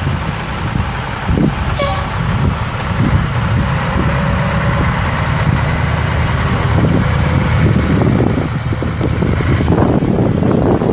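International D190 eight-cylinder diesel engine of a 1987 International S1700 truck running steadily, with a brief sharp noise about two seconds in.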